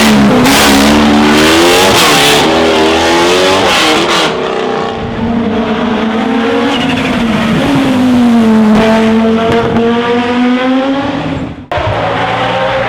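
Racing car engine under hard acceleration on a hillclimb, its pitch climbing and dropping several times with quick gear changes, then a long rise that holds high. The sound breaks off suddenly near the end and another engine takes over.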